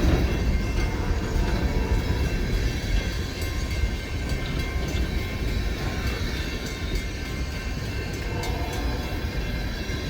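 Empty coal hopper cars of a freight train rolling past: a steady rumble of wheels on rail with scattered sharp clicks and clanks.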